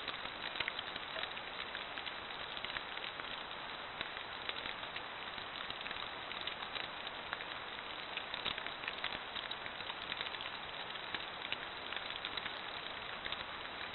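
Light rain pattering on wet leaf litter: a steady hiss dotted with many small irregular ticks from drops striking the leaves.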